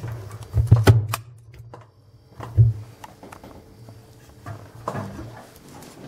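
Handling knocks and thumps as washed laundry is taken out of a front-loading washing machine's drum into a plastic basin: a cluster of sharp knocks about a second in, a thump a little later and another near the end.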